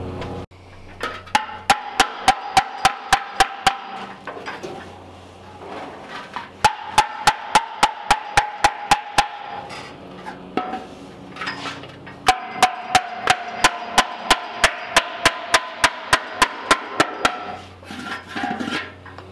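Body hammer tapping a steel fender against a dolly to bump a dent back up from underneath, in three runs of quick, even strikes at about four a second with short pauses between them.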